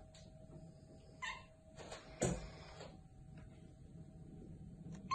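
A cat making a few short, quiet calls, one about a second in and a louder one a little after two seconds.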